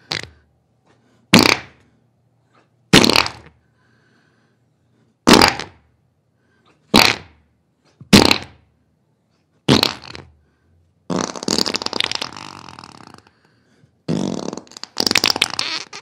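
Diarrhea sound effect: six short farting bursts a second or two apart, then two longer, ragged ones of about two seconds each.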